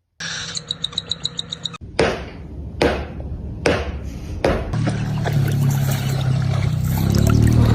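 Edited-in music: a quick run of ticks, then four heavy evenly spaced beats, then a low bass tone that rises near the end.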